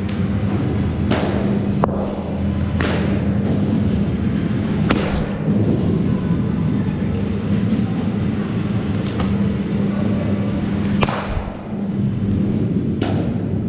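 Cricket balls knocking against bats, nets and the pitch surface: about seven sharp knocks at uneven intervals, each ringing out in a large echoing hall, over a steady low hum.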